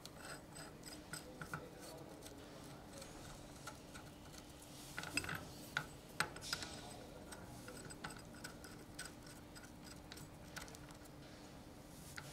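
Faint, irregular clicks and clinks of small metal tools and parts being handled, with a few sharper taps around the middle, over a faint steady low hum.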